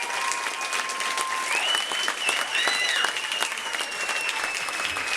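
Concert audience applauding steadily, with several long, high whistles held over the clapping.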